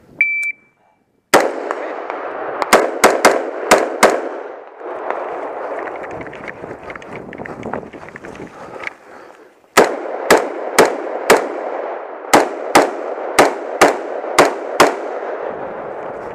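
Short start-signal beep, then pistol gunfire: six quick shots, a pause of several seconds with the noise of the shooter moving, then ten more shots fired in pairs about half a second apart.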